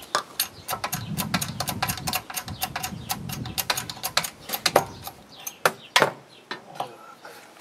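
A quick run of light metallic clicks and knocks from working a bottle hydraulic jack in a press frame and pulling out its pump handle. There is a louder knock about six seconds in, then it goes quiet.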